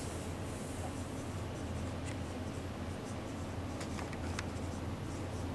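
Dry-erase marker writing on a whiteboard: short strokes of the tip on the board, with a few sharper ones about two seconds in and again around four seconds in, over a steady low hum.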